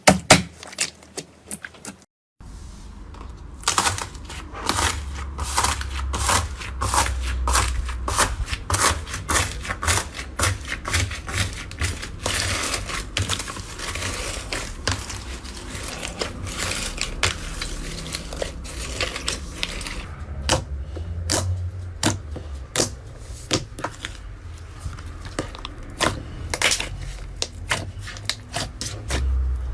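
Slime being pressed and played with by hand, giving many quick sticky clicks and crackles. The sound drops out briefly about two seconds in, then the clicking resumes, densest through the middle.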